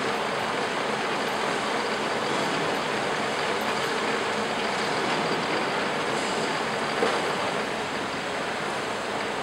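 Small benchtop metal lathe running, its chuck spinning an aluminium workpiece, making a steady, even mechanical noise.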